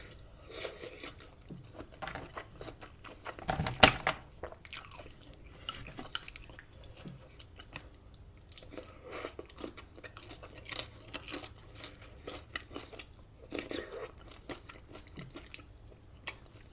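Close-miked chewing and biting: irregular wet mouth clicks and soft crunches from a mouthful of fried breakfast food. There is one louder sharp knock about four seconds in.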